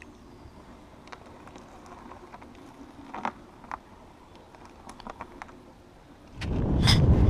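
Ninebot Elite self-balancing scooter rolling slowly over a twig-strewn path: quiet, with scattered light ticks and crackles. About six seconds in, a loud low rumble without pitch sets in.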